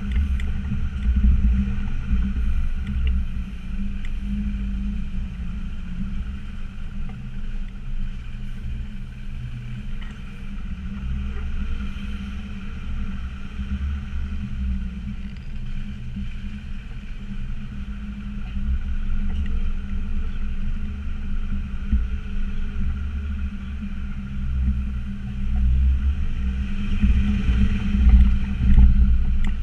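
Land Rover Discovery Td5's 2.5-litre five-cylinder turbodiesel engine running under load over an off-road track, a steady low rumble with scattered knocks and rattles, getting louder near the end.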